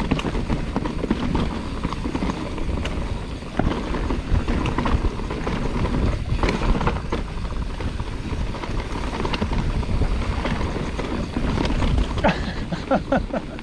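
Mountain bike descending a rough dirt trail: tyres rumbling over the ground, with a constant rattle of small knocks and clicks from the bike, and wind buffeting the chest-mounted action camera.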